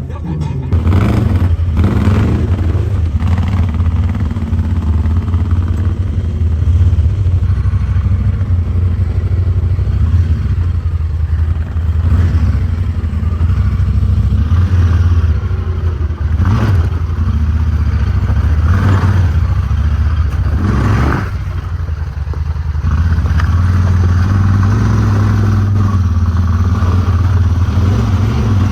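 Honda Talon side-by-side's parallel-twin engine running on a trail ride, a steady low drone with several short louder surges of revving and rattling.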